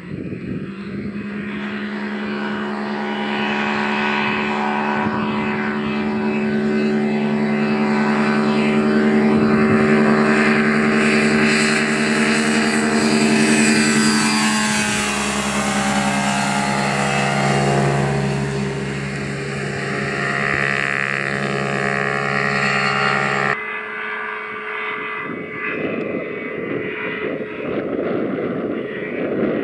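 Unmanned ultralight aircraft's engine and propeller running at full power on its takeoff run, growing louder as it comes on, its pitch dropping as it passes close by about halfway through. Near the end the sound changes suddenly to fainter, rougher engine noise with the aircraft in the air.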